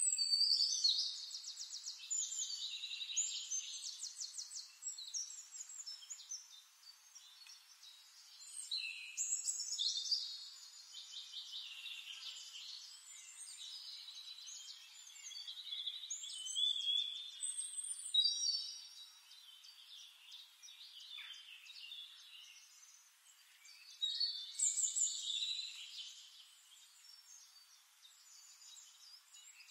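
Songbirds singing: high phrases of rapid trills and whistles, loudest in bouts several seconds apart.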